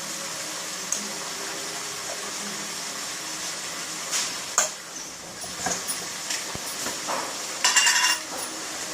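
Potatoes and broad beans sizzling steadily in oil in the pan, with a metal spoon clinking against the cookware a few times and a louder ringing clatter near the end, as spices are added and stirred in.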